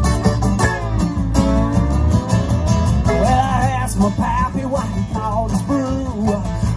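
Live band playing a country song on guitars and drums, with a lead line of bending, sliding notes over the top.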